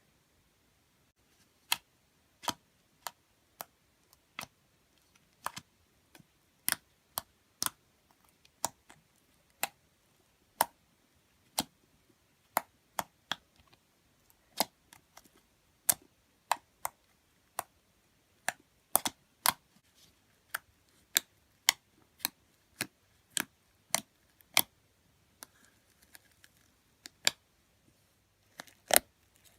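Homemade slime being squeezed and kneaded by hand, giving a string of sharp pops and clicks from trapped air, about one or two a second at uneven spacing.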